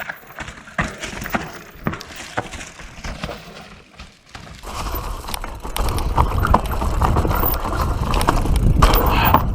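Mountain bike rolling over a rocky, rooty trail: tyres crunching on dirt and stone with scattered knocks and rattles. It grows much louder and rumblier about halfway through.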